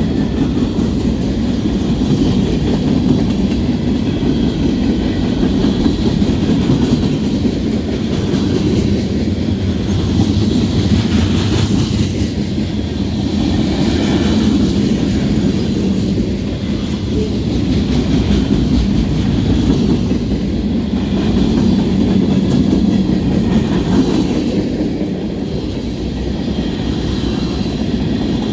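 Norfolk Southern freight train rolling past, its cars' wheels rumbling and clacking steadily on the rails.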